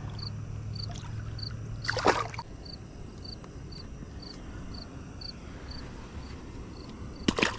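Water lapping gently against a rocky shore, with a faint high tick repeating about twice a second and two short, sharp noises, one about two seconds in and one near the end.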